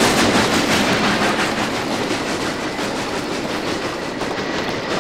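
A train running along the tracks, a steady rumble with wheels clattering over the rail joints.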